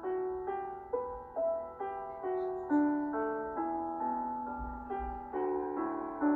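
Background piano music: a melody of single notes, about two a second, each struck and fading away.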